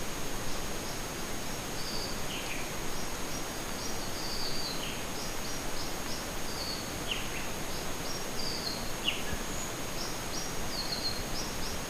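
Forest birds calling in the morning: many short, high chirps repeating throughout, with a few lower down-slurred calls now and then, over a steady background hiss.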